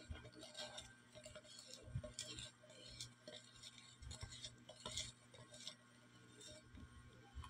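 A utensil scraping around the inside of a nearly empty plastic jar: a faint, irregular run of short scrapes and clicks.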